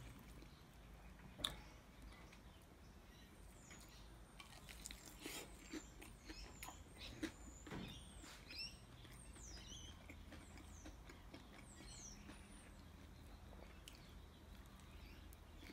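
Mostly quiet: a few faint clicks and scrapes of a knife and fork in a foam takeaway container, with soft chewing. Near the middle, several faint high chirps from small birds.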